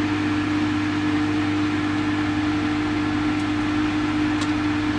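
Steady mechanical hum with a constant low tone and an even whooshing noise over it, unchanging throughout.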